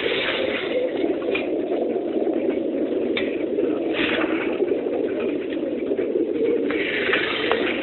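Many racing pigeons cooing together in their crates inside a transport lorry, a dense, continuous chorus of overlapping coos.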